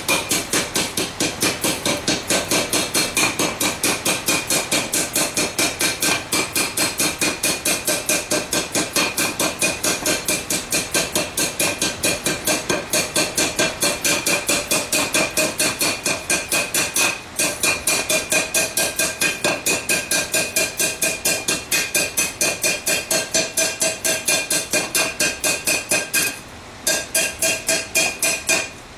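Hand hammer striking the flared rim of a hot steel bell, made from a cylinder tank, on the anvil in a rapid, steady rhythm. This is the rolling and evening-out of the bell's mouth. Each blow sets the bell body ringing with clear metallic tones, and the hammering breaks off briefly twice in the second half.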